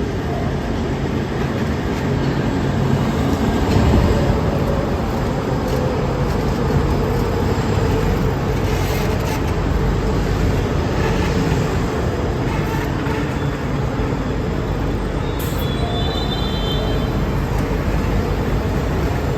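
LA Metro B/D Line heavy-rail subway train running in the station, a loud steady rumble of wheels and motors that peaks about four seconds in. A short high squeal comes near the end.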